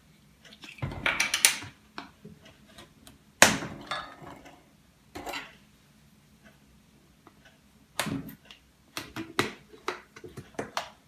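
Irregular clacks and clinks of kitchen things being handled around a stainless steel mixing bowl with a wire whisk in it, with quiet gaps between, as the plastic screw cap is taken off a carton of ryazhenka and set down on the table.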